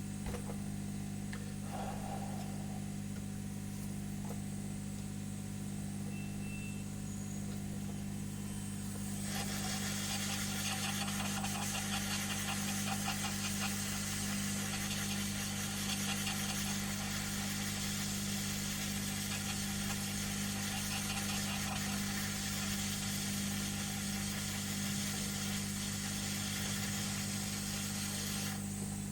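Steady low electrical hum of a rework station, joined about a third of the way in by the steady airflow hiss of a hot air rework gun blowing, which cuts off near the end.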